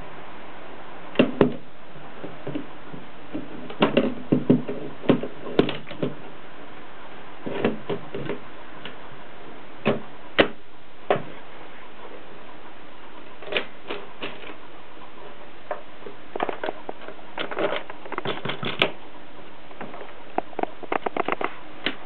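Mercedes 3 manual typewriter clacking as it is worked by hand: scattered single sharp strikes and a few short quick runs of clacks, over a steady hiss.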